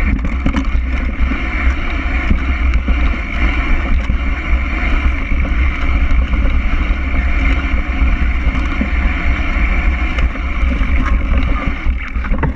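Wind rushing over the microphone of a bike-mounted action camera, with the low rumble and scattered rattles of a mountain bike rolling downhill over a bumpy grassy trail.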